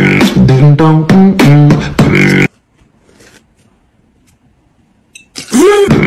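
Vocal music with beatboxing, loud and rhythmic, that cuts off suddenly about two and a half seconds in. After a quiet gap of nearly three seconds it comes back with a note that slides up and down.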